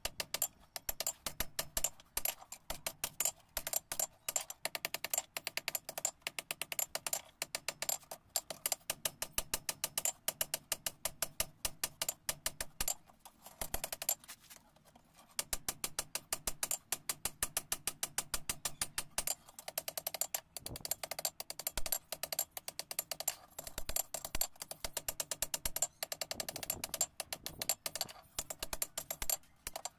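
Hand hammer striking red-hot steel of a sickle blade on an anvil in quick, steady blows, with a short break about halfway through.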